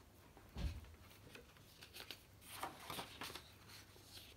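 A hardback picture book being opened and its pages handled: a soft low bump about half a second in, then faint papery rustles around three seconds in.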